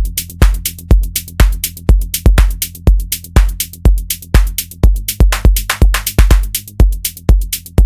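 Electronic dance music: a drum-machine kick drum keeps a steady beat of about two per second under a bass line, with hi-hat ticks between the beats.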